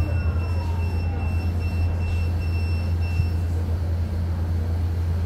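BYD K9 battery-electric bus running, a steady low rumble with a thin electric-motor whine that falls in pitch over the first second and a half as the bus slows.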